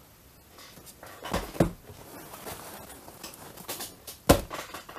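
Handling noise on a workbench as a cardboard parcel box is moved into place in front of him: a couple of knocks and light rustling, then one sharp knock about four seconds in.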